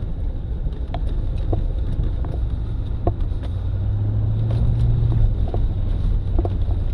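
Lifted pickup truck driving through a shallow water crossing in a desert wash, heard from inside the cab: a steady low engine and road rumble, with a drone that holds steady for a second or two about halfway through, and scattered light knocks and ticks.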